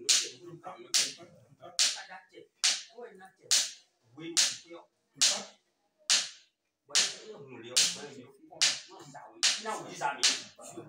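A sharp smacking strike repeated steadily about once a second, with low voices murmuring between the strikes.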